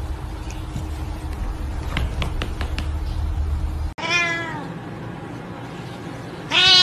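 Ginger cat meowing twice: a falling meow about four seconds in and a second, louder meow just before the end. Before that, a steady low hum with a few faint clicks.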